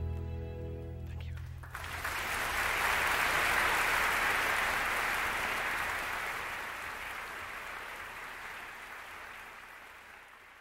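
The song's last held note dies away about a second and a half in, and a theatre audience breaks into applause that swells and then slowly fades.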